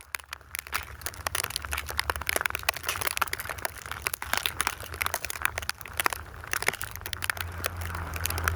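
Snow crunching: many quick, irregular crunches, over a low rumble of wind on the microphone that swells near the end.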